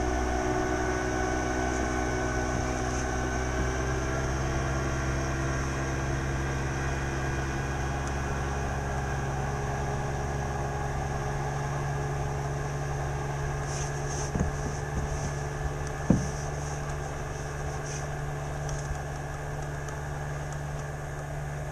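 Boat motor running with a steady hum, its pitch easing down slightly over the first few seconds. A single sharp knock comes about three quarters of the way through.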